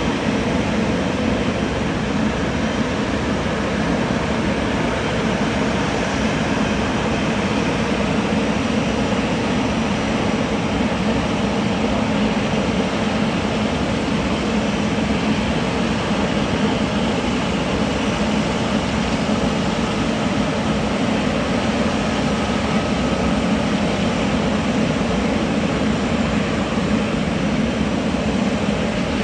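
Airbus A320neo jet engines running at a steady level: a constant noise with a low hum, neither rising nor falling.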